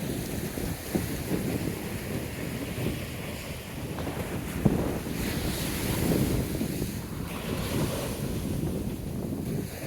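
Wind buffeting the microphone over ocean surf, with the hiss of a wave washing up rising about five seconds in.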